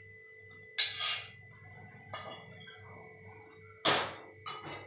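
Metal cooking pot knocking against the stove and steel dishes: a sharp clank about a second in and another near the end, with lighter clinks between and a faint ring lingering after.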